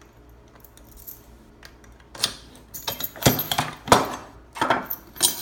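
Key working an OJMAR coin lock and its metal coin box being taken out: a string of metallic clicks and clunks, starting about two seconds in, the sharpest a little past three and four seconds.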